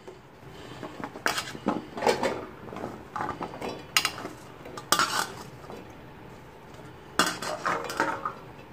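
Shallots, garlic cloves and ginger pieces dropped by hand into a stainless-steel mixer-grinder jar, knocking against the steel plate and jar: a string of sharp metallic clinks, each ringing briefly.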